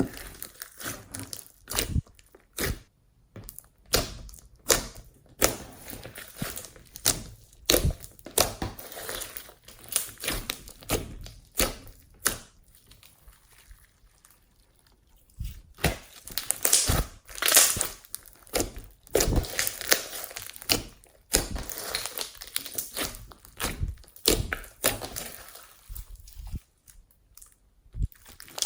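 Slime being squeezed, stretched and pressed by hand, giving irregular sticky pops, clicks and crackles, with a quieter stretch about halfway through.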